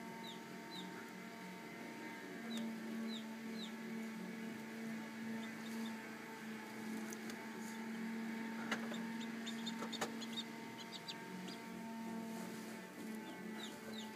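Chicks peeping in short, high chirps that fall in pitch, in scattered groups, over the steady hum of the incubator's fan. A couple of sharp clicks come past the middle.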